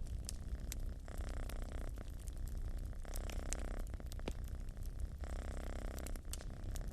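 Domestic cat purring steadily, the purr swelling and easing with each breath, over the crackle and sharp pops of a wood fire in a fireplace.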